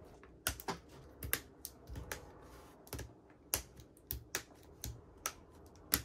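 Keyboard switches being pressed into the GMK67 keyboard's board: a quick, irregular run of sharp plastic clicks, a few a second.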